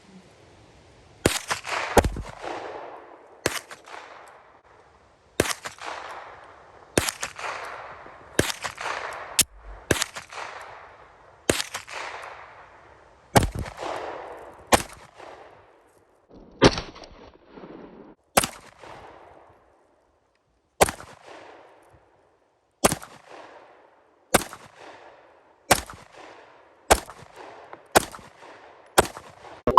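Glock pistol fired shot after shot at a slow, uneven pace, about twenty shots roughly a second or two apart, each one echoing away before the next. The rounds are target ammunition, not hollow points.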